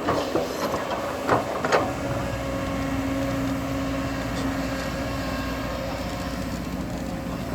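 Diesel engine of heavy earthmoving machinery running steadily under load, with three sharp metallic clanks in the first two seconds.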